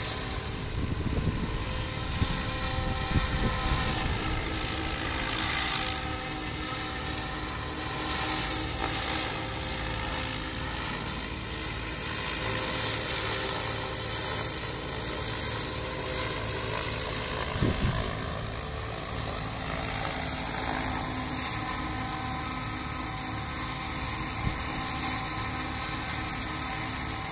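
Radio-controlled F3C aerobatic helicopter flying, its rotor and drive making a steady whine of several tones that rise and fall gently as it manoeuvres. Gusts of strong wind buffet the microphone, most in the first few seconds and again about two-thirds of the way through.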